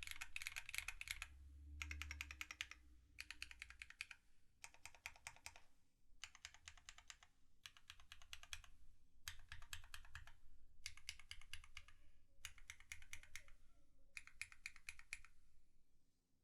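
Typing on a TX65 mechanical keyboard with lubed, retooled Cherry MX Black linear switches, a brass plate and GMK keycaps. About ten quick runs of keystrokes, each under a second and separated by short pauses, stop about a second before the end.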